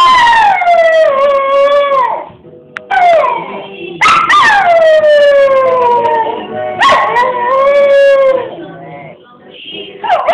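A schnauzer howling in about four long drawn-out howls, each sliding down in pitch, with short breaks between them and a longer pause near the end before it starts again.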